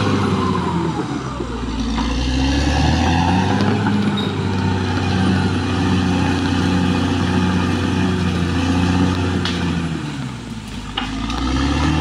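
Caterpillar D6R XL crawler bulldozer's diesel engine running under load as the machine drives along a dirt track. The engine note sags and recovers twice, about a second in and near the end.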